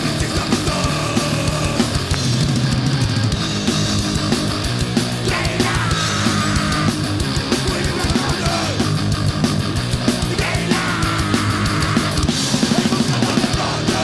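Fast, aggressive crust punk/grindcore music: heavily distorted guitars and bass over rapid, pounding drums.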